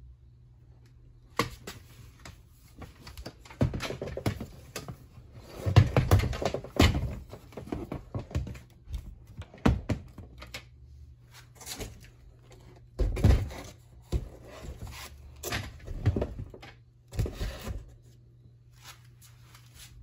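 Handling noise from a plastic box fan housing (Lasko Power Plus B20540): irregular thunks, clicks and rubbing as it is held, turned over and shifted, with the heaviest knocks around six seconds in and again near thirteen and sixteen seconds.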